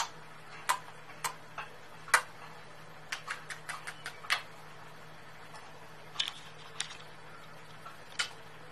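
Kisses smacking on a kitten's belly: a string of short, irregular lip smacks, the loudest about two seconds in, over a steady low hum.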